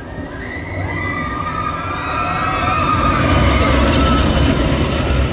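Expedition Everest roller coaster train rushing past on its steel track, its rumble building to the loudest point about three seconds in. Riders' high, wavering screams sound above it.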